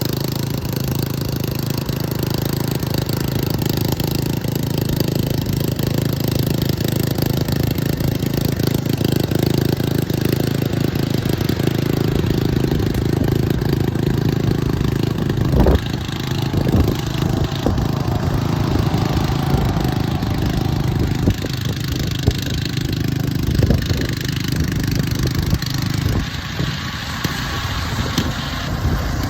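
A vehicle engine running steadily with a low rumble, with a few sharp knocks about halfway through and again later.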